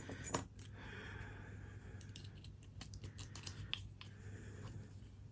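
Lock pick and tension wrench working in a Yale padlock's keyway: faint metal clicks and light scraping as the pins are probed, with one sharper click near the start.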